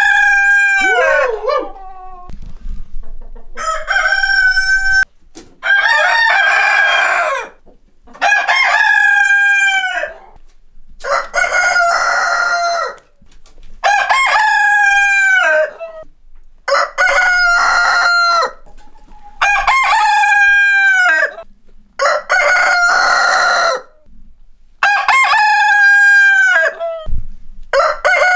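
A flock of roosters crowing one after another, about a crow every two to three seconds. Each crow is a long call that drops in pitch at its end, with hens clucking in the short gaps between.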